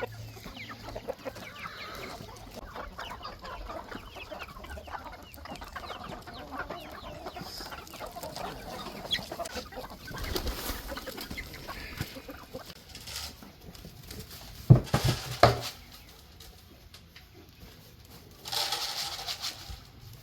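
Backyard chickens clucking over table scraps, many short calls overlapping, thinning out after the first half. A few loud thumps come about three-quarters of the way in, and a brief rushing noise near the end.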